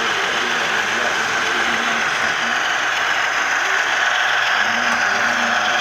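HO scale model diesel locomotives, including a Bachmann GE ES44AC, running on layout track: a steady mechanical rattle and whir of wheels on rail and geared drive, with no breaks.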